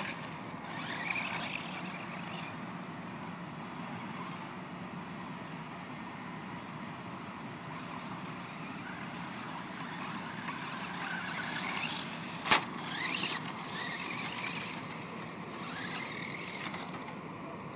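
Brushless electric motor of a Traxxas Stampede VXL radio-controlled truck on a 3S LiPo battery, whining up and down in pitch as it speeds up and slows down, over the hiss of its tyres on dirt. A single sharp knock comes about twelve seconds in.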